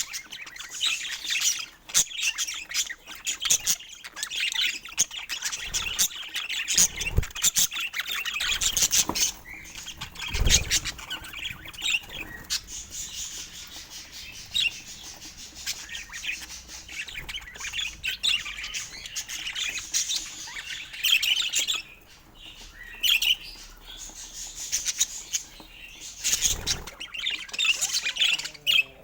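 Budgerigars chirping and chattering in quick, dense bursts of short high calls and squawks, thinning out for a while midway. A couple of low thumps come in, one about ten seconds in and one near the end.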